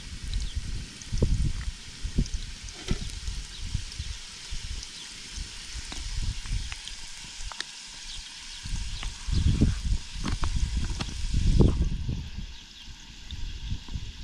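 Sliced potatoes frying in oil in pans over wood embers: a steady sizzle with scattered small clicks, alongside intermittent low rumbles.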